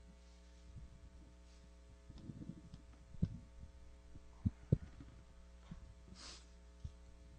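A table microphone on its stand being picked up and handled: a few dull knocks and thumps, over a steady electrical hum from the sound system. A short breath or sniff close to the microphone follows near the end.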